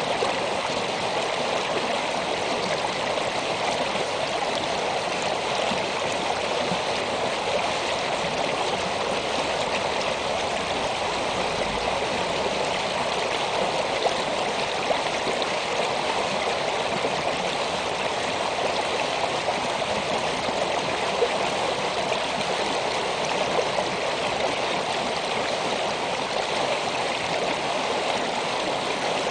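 A shallow snowmelt stream running steadily over rocks during the thaw: a continuous, even rush of flowing water.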